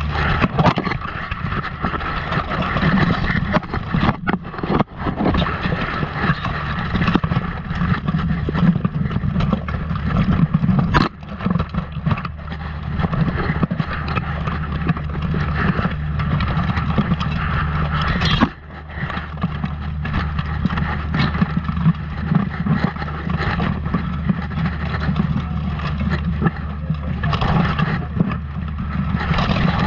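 Close-up melee in steel armour heard from a chest-mounted camera: a steady muffled rumble from the camera housing rubbing against armour and clothing, with scuffling and sharp clanks of steel on steel scattered through.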